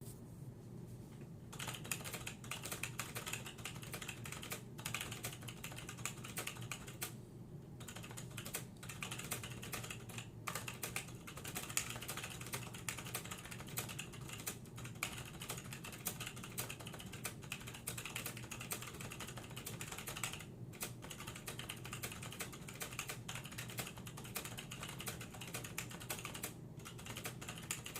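Continuous typing on an AFK-7100 MC keyboard with tactile Alps SKFS tall switches: a fast, dense run of keystrokes that starts about a second and a half in and pauses briefly a few times.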